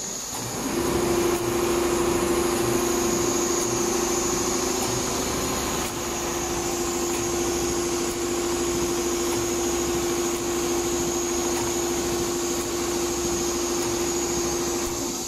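Richpeace four-head computerized pattern sewing machine running steadily while its needles stitch a quilted pattern into red leather. It gives a steady hum with a faint high whine above it and grows louder about a second in.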